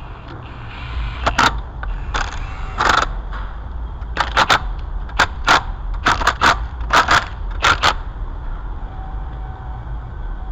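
A run of about a dozen sharp clicks and clanks in irregular succession, sometimes in quick pairs, from hands and tools working on the car's underside parts, over a steady low rumble.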